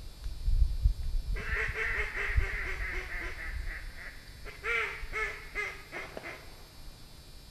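Duck quacking: a quick run of quacks for about three seconds, then a few single quacks, over low rumbling wind noise on the microphone.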